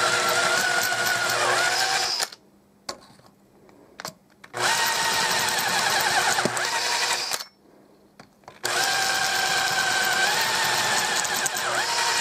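Electric drill with a 5.5 mm twist bit cutting clearance holes through a thin-walled aluminium leg tube: the whine runs in three bursts of about three seconds each, stopping in between.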